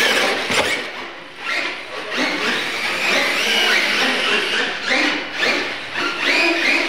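Losi LMT electric RC monster trucks launching and racing on a slick concrete floor. The loud sound starts suddenly: the motors whine, rising and falling in pitch with the throttle, and the tyres squeal.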